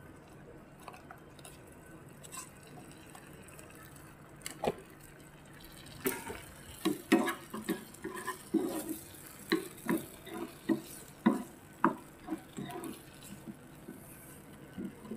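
Slotted wooden spatula stirring thick curry in a small frying pan: faint at first, then from about six seconds in a run of short knocks and scrapes against the pan, roughly two a second.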